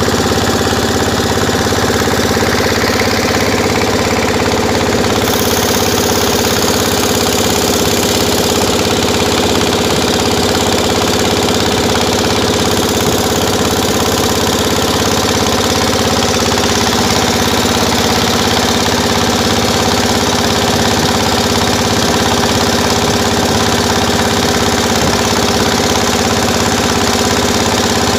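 The motorboat's engine running steadily, close by.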